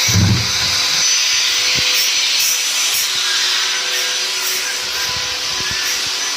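Honda Kharisma engine bored out to 200cc, running steadily and loudly on its first start, not yet tuned.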